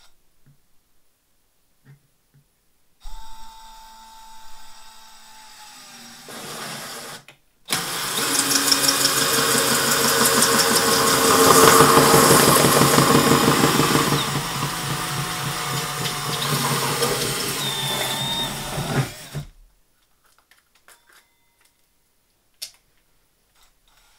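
DeWalt cordless drill driving a hole saw through the plastic lid of a storage tote. A short softer run of the drill starts about three seconds in, then a loud cut with a fast, even chatter of the saw teeth in the plastic lasts about twelve seconds and stops suddenly. A few faint clicks follow.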